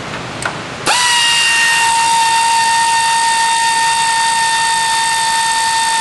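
Pneumatic air ratchet running, backing out the bolt of the engine's upper belt pulley. After a few faint clicks, a steady high whine at one pitch starts about a second in and holds.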